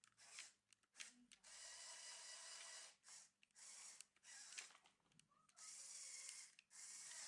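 Small electric motors and gears of a Lego excavator whirring in short spurts, starting and stopping abruptly over and over as its functions are worked.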